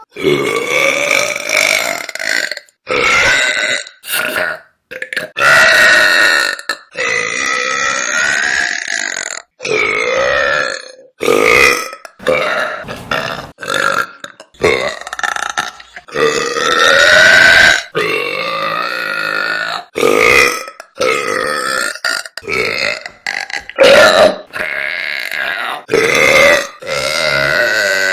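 A woman burping loudly, one burp after another in quick succession with short abrupt breaks between them, well over a dozen in all. Some are short, others long and drawn out with a pitch that wavers up and down.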